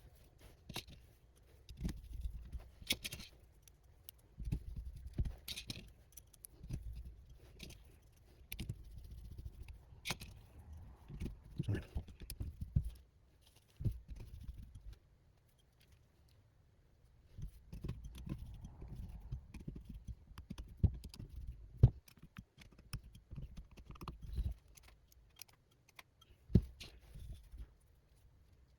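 Irregular clicks, taps and light scrapes of small parts and tools being handled while a small FPV quadcopter is worked on, with a couple of short pauses.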